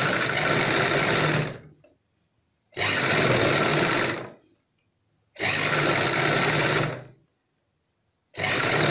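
Black Chauhan sewing machine stitching cotton fabric, running in four separate runs of about one and a half to two seconds each with brief stops between; the last run starts near the end.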